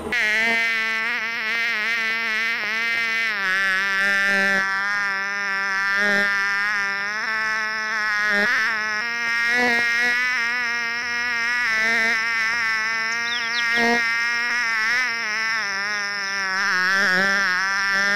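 Close, continuous buzz of a flying mosquito, its pitch wavering up and down as it flies about.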